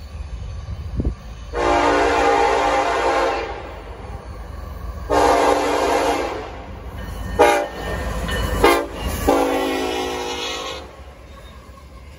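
Air horn of a BNSF EMD SD70ACe locomotive sounding a crossing signal, a chord of several tones: two long blasts, two short ones, then a final long blast. The train's diesel engines rumble low underneath.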